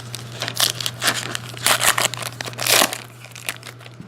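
Wrapper of a hockey card pack crinkling and tearing in several short bursts as it is handled and opened, over a low steady hum.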